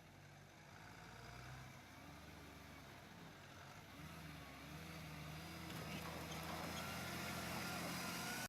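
Skid steer engine running as it grades the subbase, its pitch shifting up and down with the work and growing louder toward the end.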